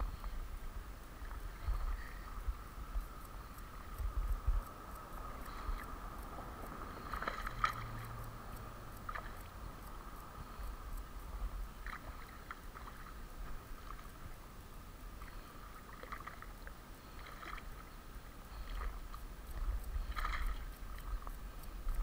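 A hooked bass splashing and thrashing at the water's surface as it is reeled to the bank, with several short splashes standing out. Low rumbling bumps on the microphone run under it.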